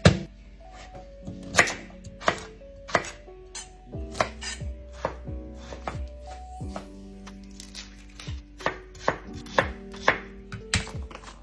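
Kitchen knife chopping vegetables on a cutting board: sharp, irregular strokes, about one to two a second, over soft background music.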